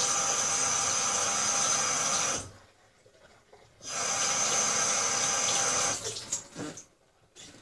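Sink tap running as floury hands are rinsed under it, shut off about two and a half seconds in, then turned on again for about two seconds. A few faint knocks near the end.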